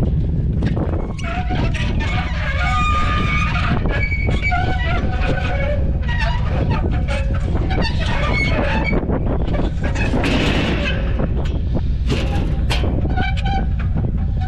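Pickup truck towing a trailer on the road: a steady low engine and road rumble with constant rattling and short high squeaks.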